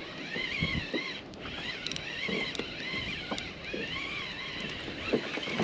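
Fishing reel being cranked, its gears whirring in short runs with a wavering pitch, with a few light knocks of handling gear.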